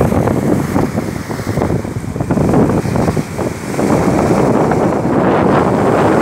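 Strong wind buffeting the phone's microphone in uneven gusts, over the wash of waves breaking on the sand.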